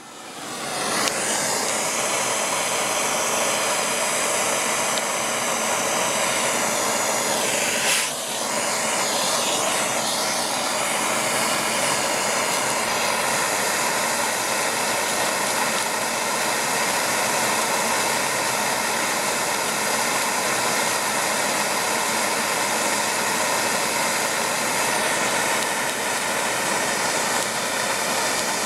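Gas torch burning with a steady hissing roar from about a second in, its flame heating a copper-float hero-style steam engine, with a brief dip and wavering in the sound about eight seconds in.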